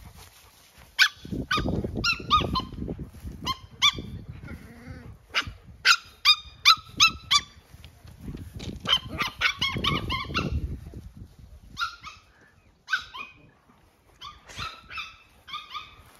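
Young herding dogs yapping in short, high-pitched barks, sometimes in quick runs of about four a second, as they chase sheep.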